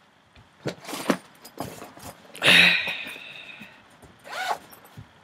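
Rummaging through clutter on a floor: several short knocks and rustles as things are moved about, with a longer scrape about halfway through.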